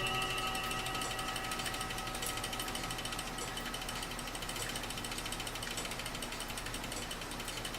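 Mechanical clock movement clicking rapidly and evenly, with metallic ringing tones from a strike just before fading out over the first few seconds.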